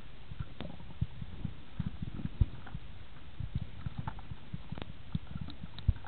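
Muffled underwater noise from a camera moving in the water: irregular low thumps and knocks, one louder near the middle and another near the end, with a few faint clicks.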